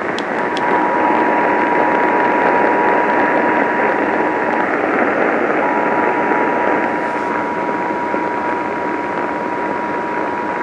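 Heavy radio static hiss with a steady two-tone Emergency Alert System attention signal sounding over it. The tone drops out for about a second midway, then resumes.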